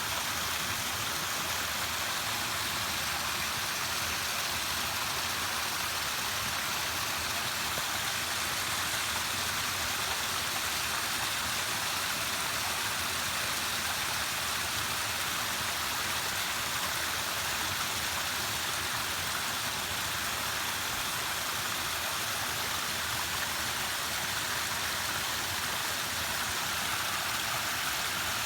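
Falling water rushing steadily, an even hiss with no breaks or changes.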